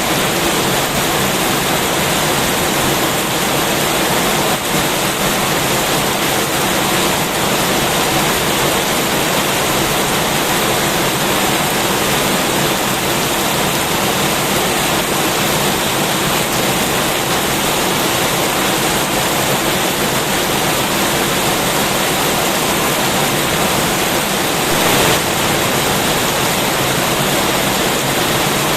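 Heavy rain falling steadily, a dense even hiss, briefly swelling a little louder near the end.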